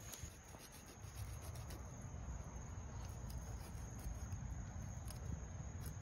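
Faint, irregular scraping and clicking of a hand fish scaler rasping the scales off a whole fish, over a low steady rumble.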